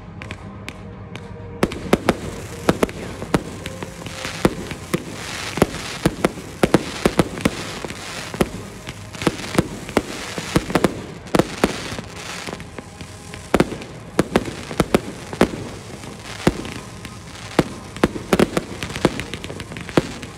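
Aerial fireworks launching and bursting in rapid, irregular bangs, several a second at times. A short lull in the first couple of seconds comes before the bangs pick up again densely.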